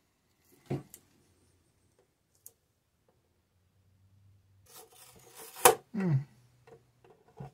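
Decal and thin polycarbonate RC car body being handled as a vinyl sticker is peeled and pressed into place: a few sharp plastic clicks and soft rubbing, with the loudest click and a burst of rustling about five to six seconds in.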